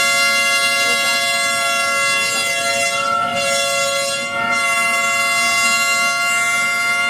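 A horn sounding one long, unwavering blast of two steady notes together for the whole stretch, cutting off at the end.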